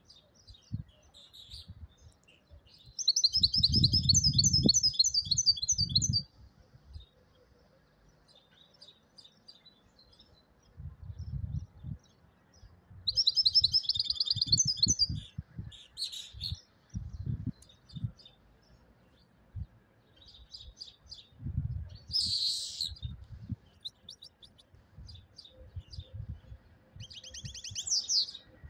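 European goldfinch singing: bursts of fast, twittering trilled phrases with scattered chirps and pauses between. The longest phrases come about three seconds in and again around thirteen seconds. Low knocks and rumbles sound under the louder phrases.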